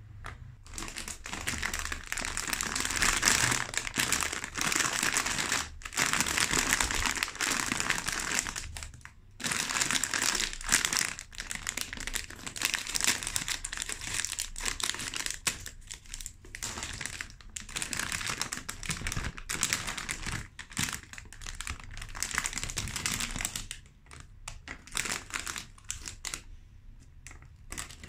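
Crinkling of a plastic biscuit packet being handled and opened, dense for most of the time. Near the end it thins to scattered short crackles.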